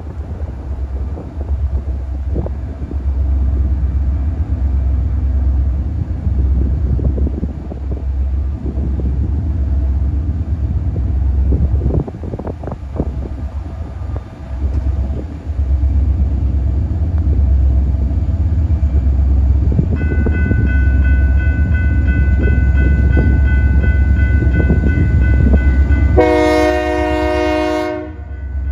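Approaching diesel freight train: a low rumble with wind on the microphone. About two-thirds of the way through a bell starts ringing. Near the end the locomotive's horn sounds one long blast of about two seconds.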